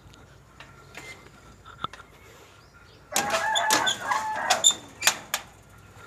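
Chickens calling in a loud burst lasting about two seconds, starting about three seconds in, with a few sharp clicks among the calls.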